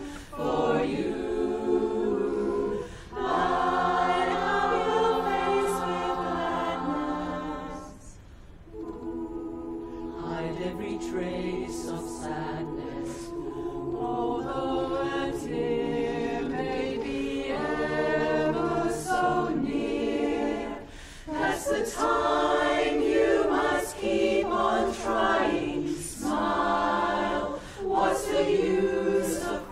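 Women's barbershop chorus singing a cappella in close harmony: sustained chords with short breaks between phrases. A softer passage about eight seconds in, after which the sound swells again.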